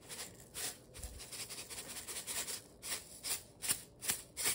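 Salt being shaken from a shaker container over a casserole of parsnips, a series of short gritty shakes, a few a second.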